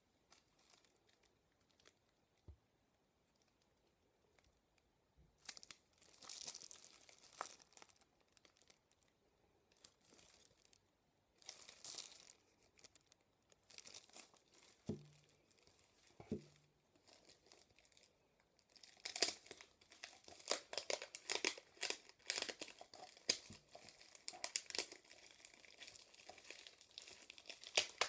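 Clear plastic wrap on a cardboard tube package being torn and crinkled: scattered crackles at first, becoming dense, continuous crinkling about two-thirds of the way in. There are two soft knocks around the middle.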